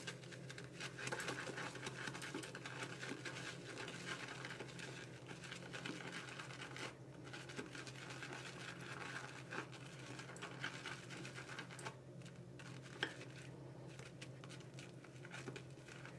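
Synthetic shaving brush whisking shaving cream into lather in a small bowl: a faint, continuous wet swishing that grows quieter about twelve seconds in, with one light tap shortly after.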